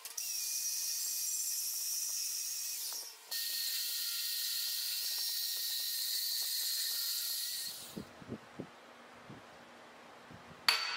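Power tools cutting stainless steel tube, the later stretch a portable band saw: a steady hissing cutting noise with a thin whine over it, broken off sharply about three seconds in and stopping near eight seconds. Then a few light knocks and one sharp metallic clink near the end as cut pieces of steel tube are set down on a hard surface.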